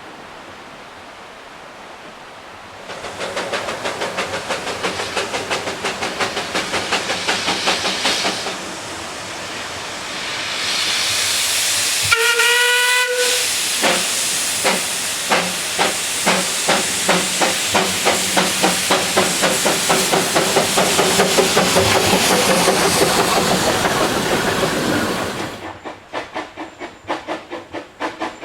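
Steam locomotive working hard: a run of rhythmic exhaust chuffs with steam hiss, broken by one short whistle about twelve seconds in. Near the end the sound cuts abruptly to quieter, evenly spaced chuffs.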